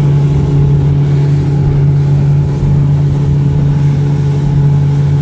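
Mercury F80 EFI four-stroke outboard running steadily with the boat under way, a steady low engine drone over the rush of wind and water along the hull.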